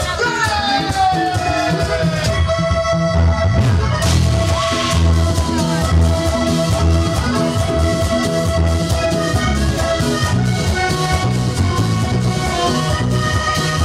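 Live vallenato band playing, with a button accordion holding the melody over bass and percussion in a steady rhythm. The bass and drums drop out for about two seconds near the start, then come back in under the accordion.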